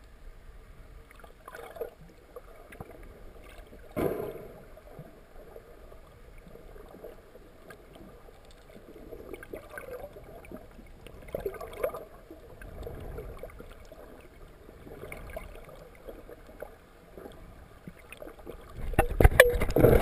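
Underwater sound heard through a GoPro's waterproof housing: muffled gurgles and scattered knocks, one sharp thump about four seconds in. Near the end a loud rush of bubbles and splashing as a freediver comes right up to the camera.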